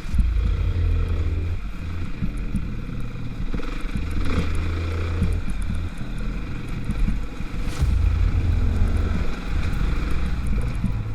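Dirt bike's single-cylinder four-stroke engine running at low revs over a boggy trail, with a deep rumble that swells and eases and a sharp knock about eight seconds in.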